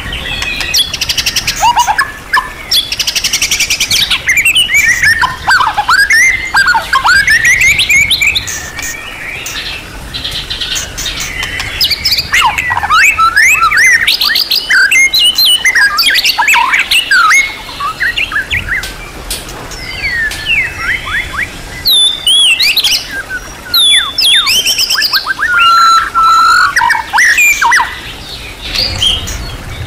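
White-rumped shama (murai batu) singing a long, varied song packed with mimicked phrases: loud whistled glides sweeping up and down and rapid trills, broken by short pauses every few seconds.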